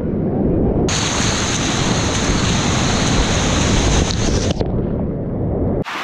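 Whitewater rapids rushing close past a kayak-mounted action camera, with a heavy low rumble of water and wind buffeting the microphone. About a second in, the sound abruptly turns brighter and hissier for a few seconds, then drops back, with a brief sudden dropout just before the end.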